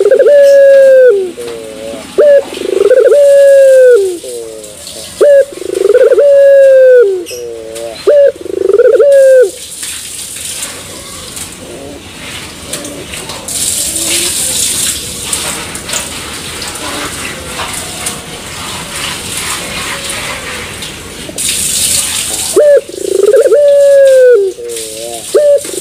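Young puter pelung (Barbary dove), three months old, cooing: a short note followed by a long drawn-out coo, repeated about six times. Then a pause of about twelve seconds with only a faint hiss, and the cooing starts again near the end.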